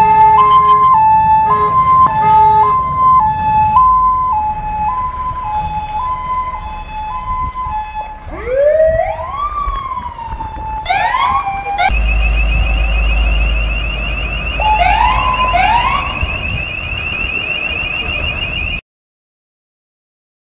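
Fire engine siren in a two-tone pattern, each tone held about half a second. About eight seconds in it changes to a rising and falling wail, then to a fast high warble over the truck's low engine rumble, and it cuts off abruptly near the end.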